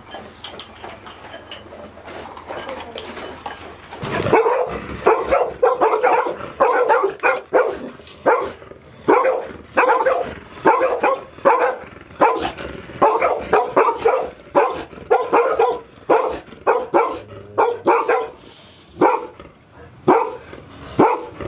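Dogs barking over and over, starting about four seconds in and going on in rapid runs of short barks.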